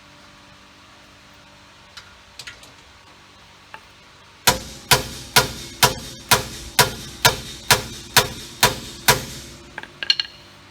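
Hammer beating a steel socket extension set against a bolt, to drive a rear wheel bearing hub out of its housing: about eleven ringing metal-on-metal blows, a little over two a second, starting about four seconds in and stopping near the end, with a few light taps before and after.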